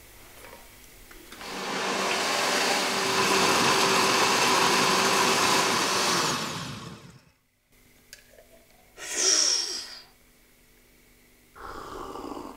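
Countertop blender running for about five seconds, blending a shake with ice cubes, then winding down and stopping. Two short, softer noisy sounds follow near the end.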